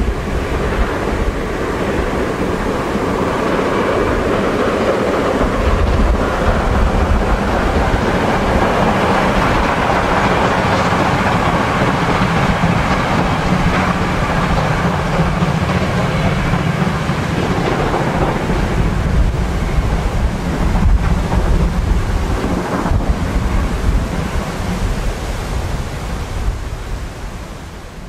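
DR class 50 steam locomotive 50 3648 working hard with a train, its exhaust beat heard from a distance as a heavy rumble mixed with wind noise on the microphone. It fades near the end as the train moves away.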